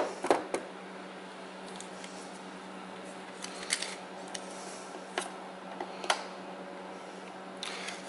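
Scattered light clicks and taps of hand tools being set down and handled against a hard plastic mower console, about eight in all, over a steady low hum.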